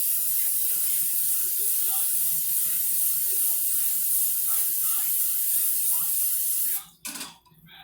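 Coconut oil cooking spray hissing from an aerosol can in one long, steady spray of about seven seconds that stops abruptly, followed by a short knock.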